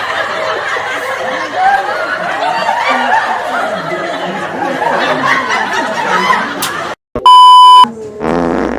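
Several people laughing and giggling. After a sudden brief break comes a loud, steady, high beep lasting under a second, followed by a short buzzing sound near the end.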